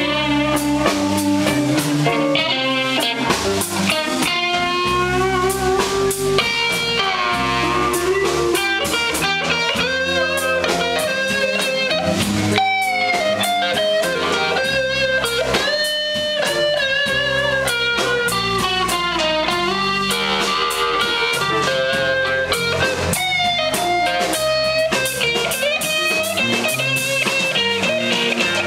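Live blues band playing: an electric guitar leads with bent, sliding notes over electric bass and a drum kit.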